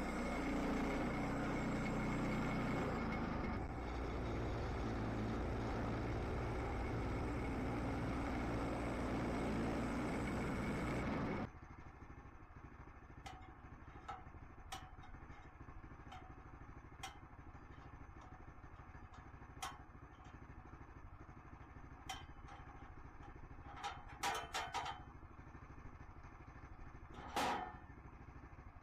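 Engine running steadily, then cut off abruptly about eleven seconds in, leaving a low steady hum with scattered light clicks and a few louder knocks near the end.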